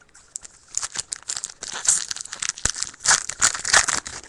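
Trading card pack wrapper being torn open and crinkled, a dense crackling rustle that starts about half a second in and grows louder toward the end.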